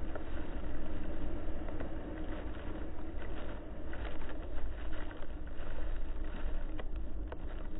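Muddy water spraying and pattering against the side of a Range Rover Classic as its wheels drive through a deep puddle, over a steady low rumble of the moving vehicle.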